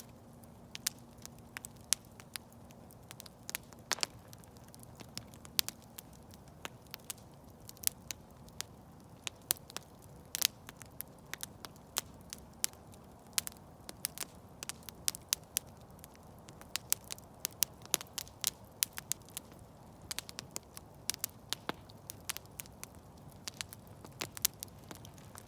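Campfire burning with irregular sharp crackles and pops from the wood over a soft low rush of flame.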